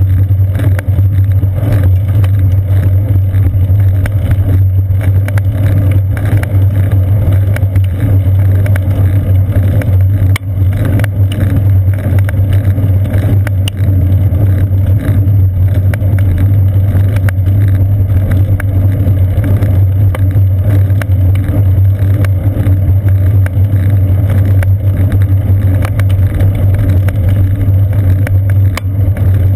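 Steady low rumble of a bicycle rolling over a paved path, the tyre noise and frame vibration carried straight into the seat-post-mounted camera.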